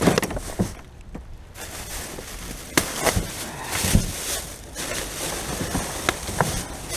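Rubbish bags and loose items being handled and sorted by hand: irregular sharp knocks and clicks over a rustling hiss.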